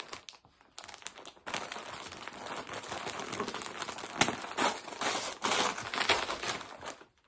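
Gift wrapping paper crinkling and tearing as a present is unwrapped by hand: a dense, crackly rustle that starts about a second and a half in and keeps going until just before the end.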